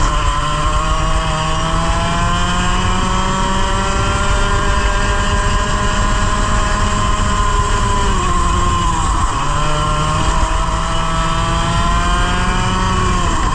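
100cc two-stroke racing kart engine heard onboard, running at high revs under load. The engine note drops sharply as it slows for a corner a little past halfway, then climbs again as it accelerates away, and it falls off once more near the end.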